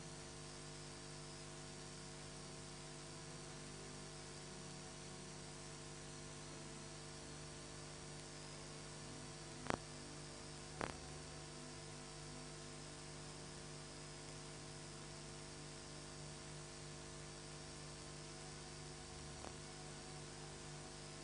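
Steady electrical mains hum with hiss, and two short clicks about ten seconds in.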